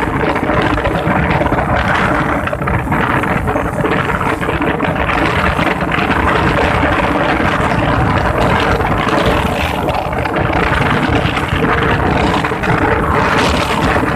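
A vehicle engine running steadily with a rattle, under heavy wind noise on the microphone, heard from the moving vehicle.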